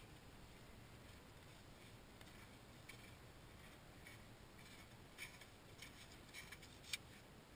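Near silence: a faint steady background hiss with a few faint, short clicks in the second half, the sharpest one near the end.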